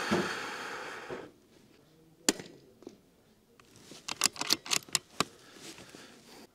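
Bergara .22 LR bolt-action rifle firing Aguila subsonic ammunition: a shot near the start that fades away over about a second, then a single sharp click about two seconds in. Between four and five seconds in comes a quick run of sharp metallic clicks as the bolt is worked to chamber the next round.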